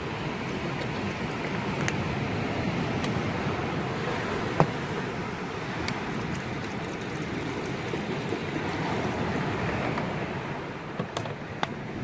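Steady rushing of wind and sea surf, with a single sharp knock about four and a half seconds in and a few light clicks near the end.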